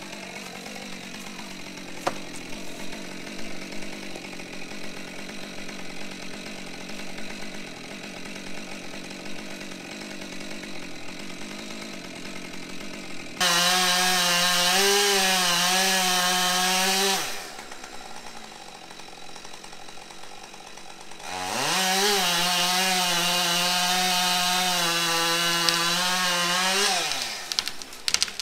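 Gas chainsaw idling steadily, then opened up to full throttle twice, for about four and then six seconds, to cut the felling notch into a standing dead maple trunk. The pitch wavers under load in the cut and falls back to idle after each cut.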